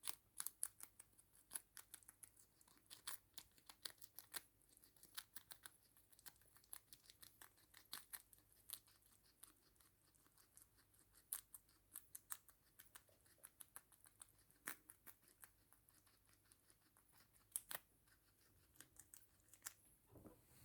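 Abyssinian guinea pig chewing, a steady run of small, crisp crunching and snipping bites in irregular bursts.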